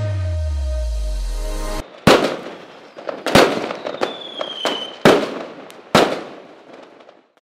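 Dance music ends on a held bass note with a falling sweep, cut off about two seconds in. Aerial fireworks follow: four sharp bangs, each trailing off in crackle, and a brief high whistle between the second and third. The bursts fade out just before the end.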